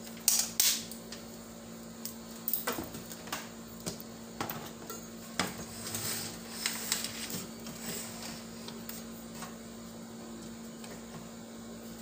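Scattered clicks, knocks and clatter of a microwave oven's metal chassis and parts being handled and fitted back together, over a steady low hum.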